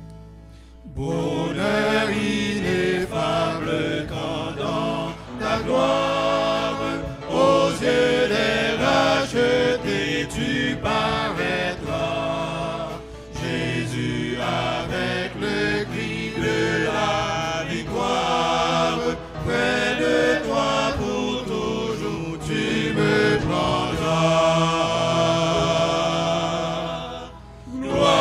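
Church congregation singing a French hymn together, with the singing starting about a second in.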